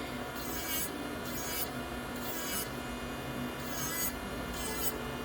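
Melody Susie Atena cordless nail drill (e-file) running with a steady motor whine while its bit files down a dip powder manicure, the scratchy grinding surging in short strokes about once a second.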